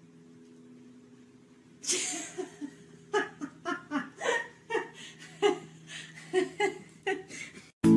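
A person laughing hard in short repeated bursts, starting about two seconds in with a breathy outburst and cutting off just before the end. A faint steady hum lies underneath.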